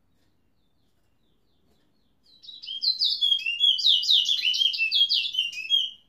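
A caged towa-towa (chestnut-bellied seed finch) singing: starting a little over two seconds in, one fast, continuous run of high, quick chirping and warbling notes lasting about three and a half seconds, stopping just before the end.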